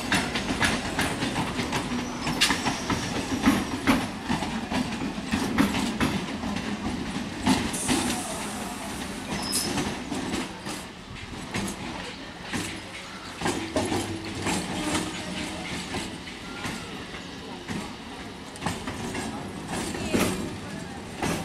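Electric multiple unit suburban trains rolling past, steel wheels clattering over rail joints with many sharp, irregular clicks over a steady running rumble, louder in the first half.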